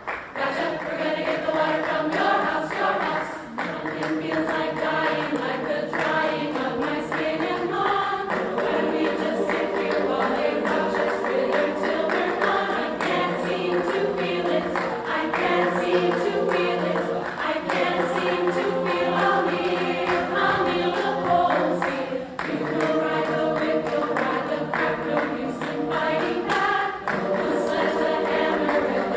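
Women's chorus singing in several parts.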